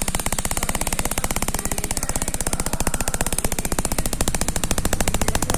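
High-voltage arcing inside a CRT television: a rapid, even crackle of sparks snapping many times a second without a break. It is the sparking fault the set came in for.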